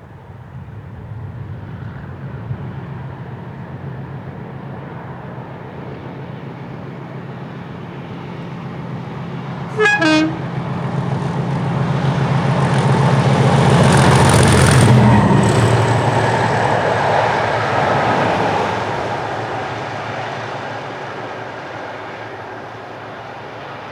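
A pair of Class 37 diesel locomotives with English Electric engines, getting louder as they approach. About ten seconds in there is a short horn blast. They pass loudest a few seconds later, then fade away.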